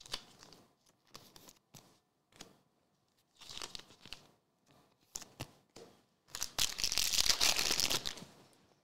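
Trading-card pack wrapper being torn open and crinkled: a few short rustles and clicks of cards being handled, then one long, loud tearing crinkle about two seconds long near the end.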